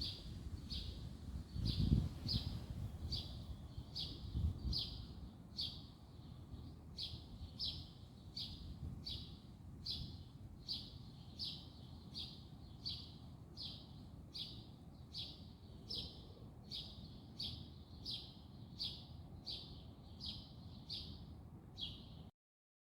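A small songbird repeating one short, high call over and over, about two calls a second, until the sound cuts off abruptly near the end. A low rumble is heard in the first few seconds.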